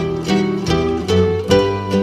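Instrumental background music led by a plucked string instrument, its notes picked at an even pace of two to three a second.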